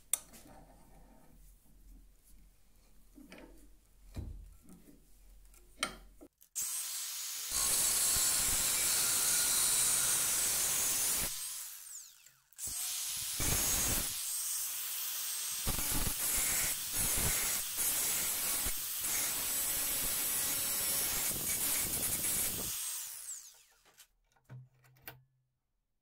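A few light handling knocks, then an angle grinder working on a steel door hinge in two long, loud runs with a short break between them.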